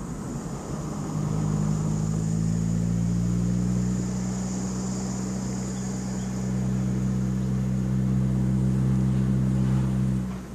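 Car engine and road noise heard from inside the cabin while driving: a steady drone at constant pitch that settles in about a second in and drops away near the end.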